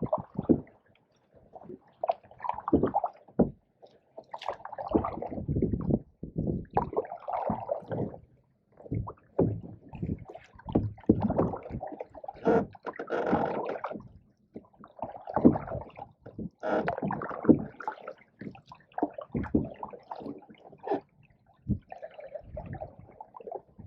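Canoe paddles dipping and pulling through pond water: irregular splashing and gurgling strokes, with a sharp knock now and then.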